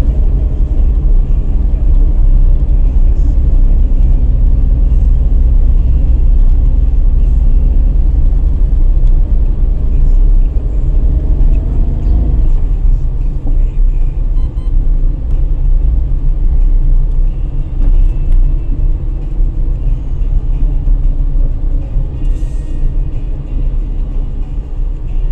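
A car driving on city streets: a steady low rumble of the engine and the tyres on the road.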